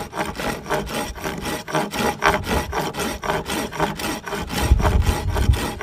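A reciprocating-saw blade used as a hand saw, cutting through dry Osage orange wood in a steady run of short, even back-and-forth strokes. A brief low rumble comes near the end.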